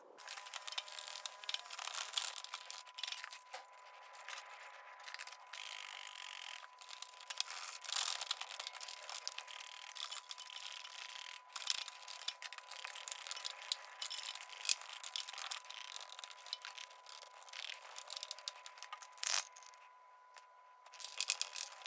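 Irregular rubbing and scraping with scattered clicks and clinks, like hands handling hard objects, over a faint steady high tone.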